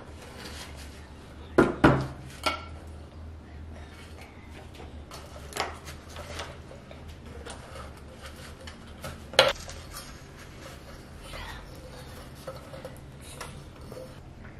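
Small craft pieces clinking and knocking as they are handled in a wooden tray and on a tabletop: a few scattered sharp knocks, the loudest about two seconds in and another near nine seconds, over a low steady hum.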